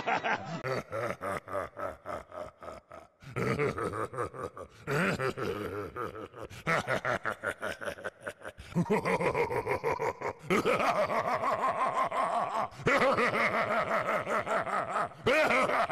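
Animatronic Halloween clown props' recorded laughter: rapid, pulsing ha-ha-ha laughing in several separate stretches that break off and start again.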